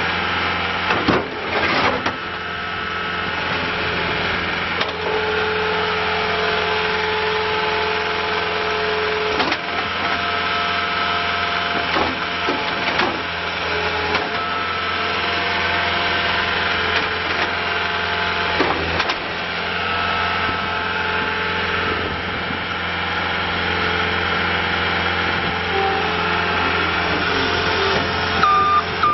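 2011 John Deere 318D skid steer loader's diesel engine running steadily, with a few sharp metallic knocks and higher tones that come and go. Near the end its reversing alarm starts beeping.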